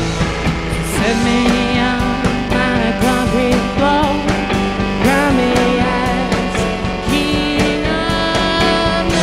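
Rock band playing live: electric guitar, keyboards and drums, with a man singing lead over them.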